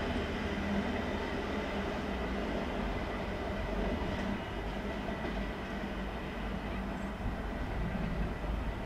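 Diesel-hauled freight train running past, a steady rumble of locomotive and wagons on the rails with a faint high whine, easing slightly about halfway through.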